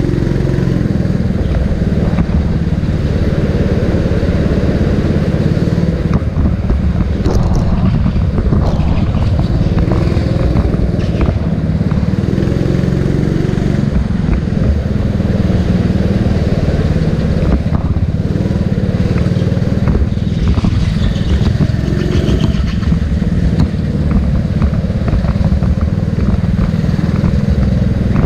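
Go-kart engine running continuously, loud and steady in level, its pitch shifting up and down as the kart speeds up and slows around the track.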